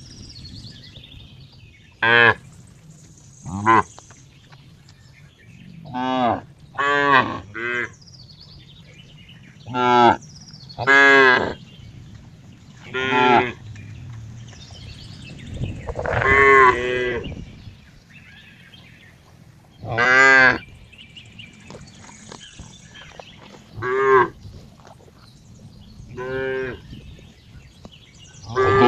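Cattle mooing: about a dozen short calls at irregular intervals, one longer call around the middle.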